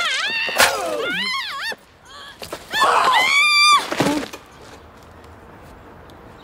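Two shrill, wavering screams from a person in a scuffle: the first lasts about a second and a half, the second about a second. Knocks and a thud come in between, the thud about four seconds in as someone falls to the pavement.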